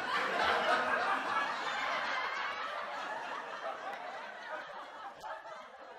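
Audience laughing, swelling at once and slowly dying away.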